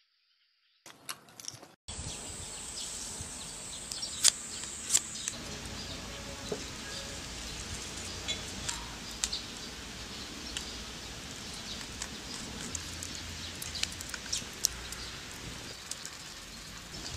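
Outdoor background noise: a steady hiss with bird chirps and scattered sharp clicks and taps, which starts about two seconds in after a short stretch of near silence.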